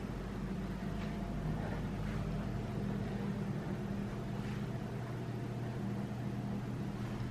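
Steady low mechanical hum, with a few faint taps about a second, two seconds and four and a half seconds in.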